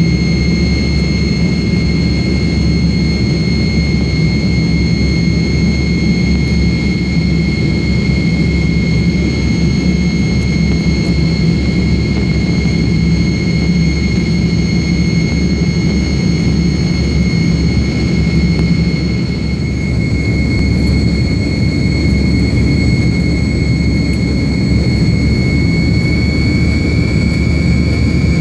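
Tupolev Tu-154M's three rear-mounted Soloviev D-30KU-154 turbofans heard from inside the cabin during the climb after takeoff: a steady deep rumble with a high steady whine over it, the whine rising slightly in pitch near the end.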